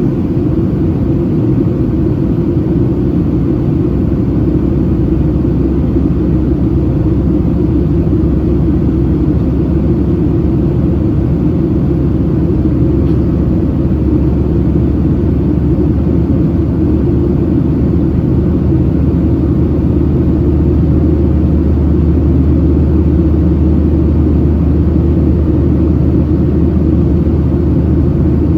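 Steady cabin noise of a Boeing 737-700 in powered flight: its CFM56-7B turbofan engines running and air rushing past the fuselage, heard from inside as a loud, even low rumble with a faint steady hum above it.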